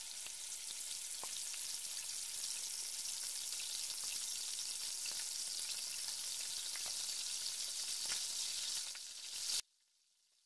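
Salted beef, onions and tomatoes sizzling in a hot pot on the stove, a steady hiss with scattered small crackles. The sound cuts off suddenly near the end.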